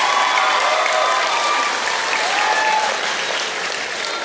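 Audience applauding, with a few voices calling out over the clapping; the applause eases off toward the end.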